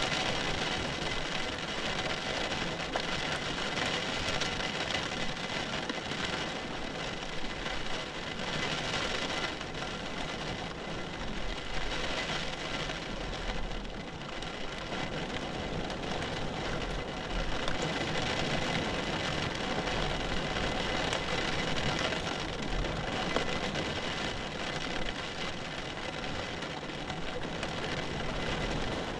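Steady rain falling, an even dense hiss, with a low rumble coming and going underneath.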